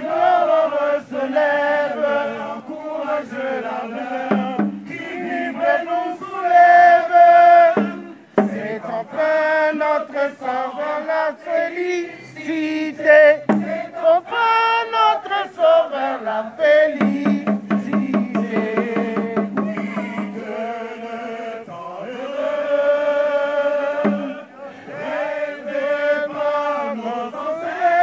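A crowd of men and women singing a national anthem together in long sung phrases, with short breaks between them.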